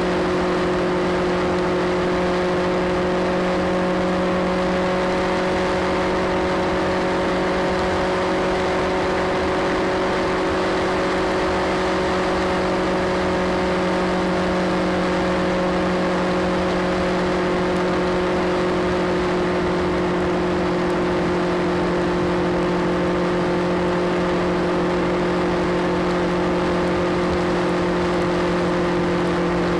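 Motorcycle engine running at a steady cruising speed, its pitch holding nearly constant, under a constant rush of wind and road noise.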